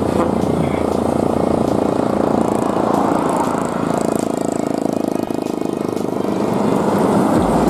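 Diesel engine and tyres of a container tractor-trailer truck driving past up close, a steady rumble that grows a little louder near the end.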